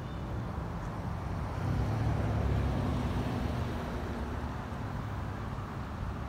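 Road traffic rumbling steadily, with a vehicle engine's low hum growing louder about one and a half seconds in and fading again after about four seconds.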